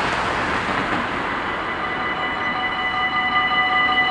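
Dutch AHOB level-crossing warning bells starting to ring about a second in and growing louder, a steady ringing of several tones at once, as the crossing activates for an approaching train. Before them, the noise of a car driving over the crossing fades away.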